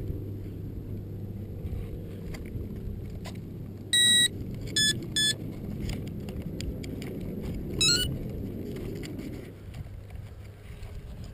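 Electronic beeps from radio-control flying gear: one loud beep of about half a second, then two short beeps, and about four seconds later a quick rising run of tones, as when the electronics arm or a setting is confirmed. A steady low rumble runs underneath.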